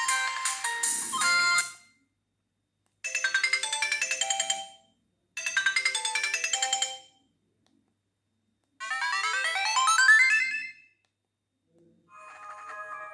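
Sony Ericsson Z320i mobile phone ringtones played one after another: short electronic melodies of a second or two each, separated by silent gaps. The fourth is a rising run of notes, and a softer tone with held chords begins near the end.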